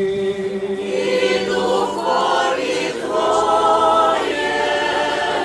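Church choir singing unaccompanied liturgical chant: several voices hold long chords over a steady low note, with the upper parts moving from chord to chord.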